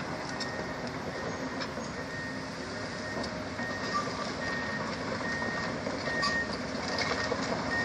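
Komatsu tracked excavator's travel alarm beeping at one steady pitch, about every three-quarters of a second, over its diesel engine running as the machine tracks along.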